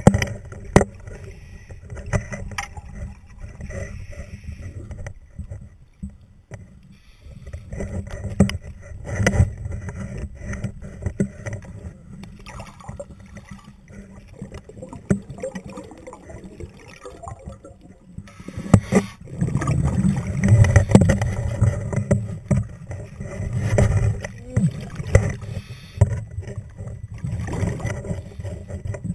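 Underwater noise of a strong river current heard through a diver's camera housing: a constant low rush and rumble of water, with many small clicks and knocks against the camera. It gets louder twice, about two-thirds of the way through and again a few seconds later.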